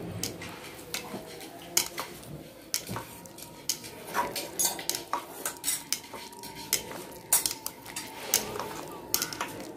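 Utensils clinking and knocking against a stainless steel pot as a hot pot stew of vegetables and meat is stirred: irregular sharp clinks, coming several a second at times.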